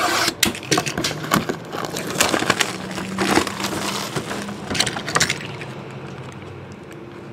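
Cardboard hobby box being opened by hand: flaps pulled and torn, with crackling, scraping and crinkling of packaging, busiest in the first five seconds and then dying down.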